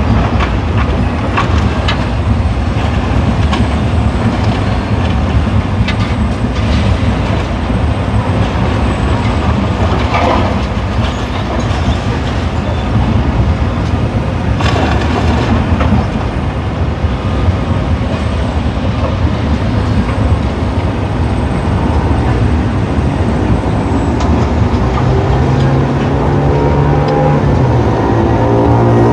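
Demolition machinery at work: a continuous heavy rumble with many knocks and crashes of masonry and rubble. Near the end a diesel engine revs up.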